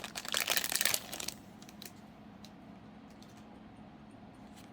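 Trading cards and their plastic packaging being handled: a dense rustle of crinkles and clicks for about the first second, then a few light clicks.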